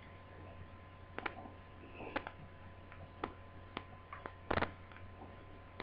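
Scattered small clicks and taps of laptop parts and the DC jack cable being handled during reassembly, the loudest a quick double click about four and a half seconds in, over a steady low electrical hum.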